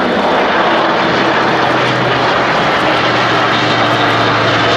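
Airbus A400M's four Europrop TP400 turboprop engines running loud and steady as the transport aircraft flies low overhead: a low propeller drone that drops slightly in pitch about a second in, under broad engine noise.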